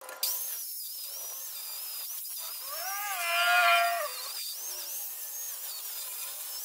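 Angle grinder with an 80-grit flap disc grinding down welds on steel tubing: a steady high motor whine over a hiss. In the middle a louder squeal rises, then holds for about a second and a half.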